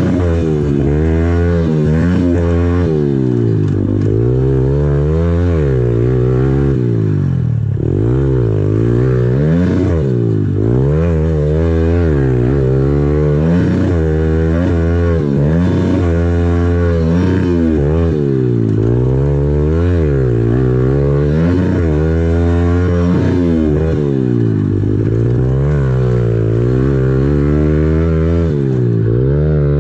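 Small single-cylinder four-stroke pit bike engine being ridden hard, revving up and dropping back over and over, its pitch rising and falling every second or two.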